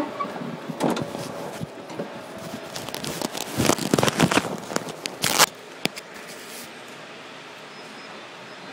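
Handling noise from a phone's microphone being rubbed and knocked: scattered clicks, then a dense run of crackling and scraping from about three seconds in that stops sharply at about five and a half seconds.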